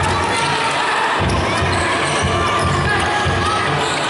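Basketball dribbled on an indoor court floor, bouncing repeatedly, with short squeaks from sneakers on the court.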